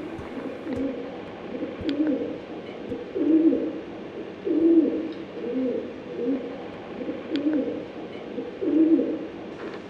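Pigeons cooing: a low coo repeated about every second.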